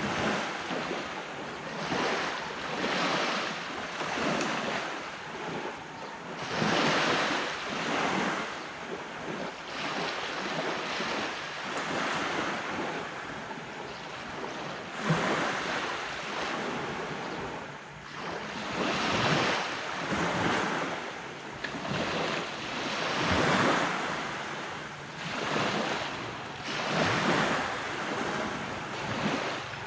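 Ocean waves breaking and washing on a beach, the surf swelling and falling back every few seconds, with wind buffeting the microphone.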